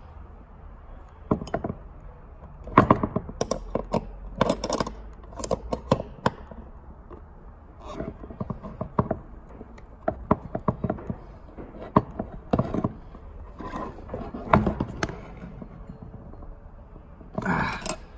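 Open-end wrenches clicking and clinking against the nuts on a clutch master cylinder pushrod as they are tightened. The clicks come in irregular taps and short clusters throughout.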